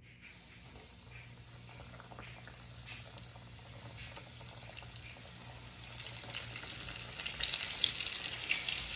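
Coated pieces of redfish sizzling in hot oil in a frying pan, with many small pops. The sizzle grows louder as more pieces go in, most clearly from about halfway through. The cook judges the oil too hot.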